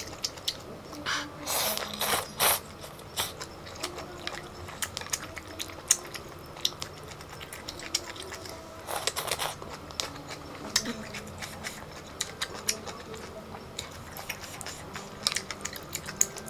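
Close-up eating of noodles in broth: noodles slurped in short bursts about two seconds in and again around nine seconds, with wet chewing and small mouth clicks in between.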